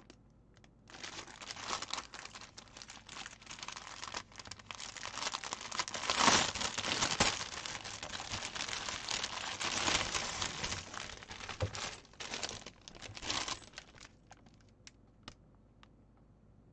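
Plastic packaging rustling and crinkling as a stamped cross stitch kit is handled and unwrapped. It starts about a second in, is loudest around six seconds in, and dies down to a few faint ticks near the end.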